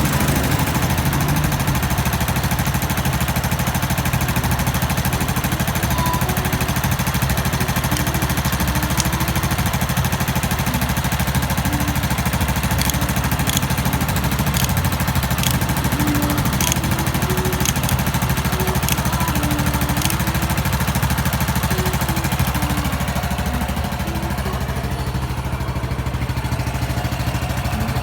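Motorcycle engine idling steadily after a rebuild with a new cam chain set and checked gearbox bearings and clutch, running quietly. The idle settles a little lower near the end.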